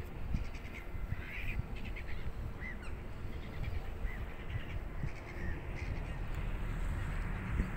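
Birds calling a few times with short chirps over a steady low rumble.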